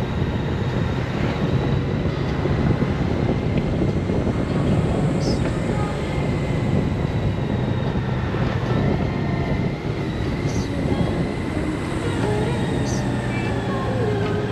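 Wind and road noise from riding a Honda Gold Wing at a steady cruise, over its flat-six engine running.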